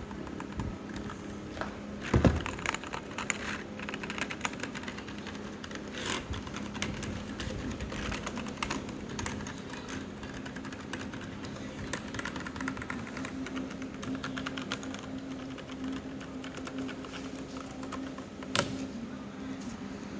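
Typing on an Azio MK-MAC-U01 mechanical keyboard with K-Switch keys: a continuous, irregular run of key clicks, with a couple of heavier strikes about two seconds in and near the end.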